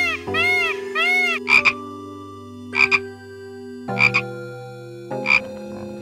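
Animal calls: a few quick rising-and-falling chirps in the first second, then four short croaks, each a quick double pulse, about a second and a quarter apart, over steady low tones.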